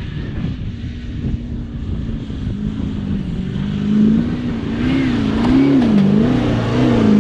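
Four-wheel drive's engine revving hard as it drives up a soft sand dune. The revs swing up and down while the tyres dig in, and the engine grows louder about four seconds in.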